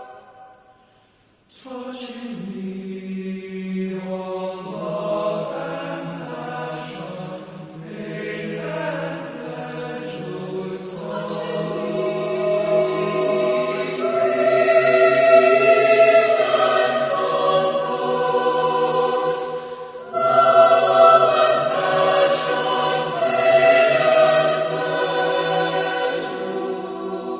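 A choir singing with held, sustained chords. The singing starts after a brief silence at the opening and dips for a moment about twenty seconds in before coming back louder.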